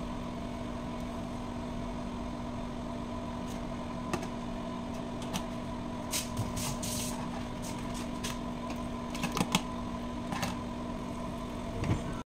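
Chicken cooking in a creamy white sauce in a frying pan on a gas stove, with a spatula scraping and knocking against the pan every second or two over a steady mechanical hum.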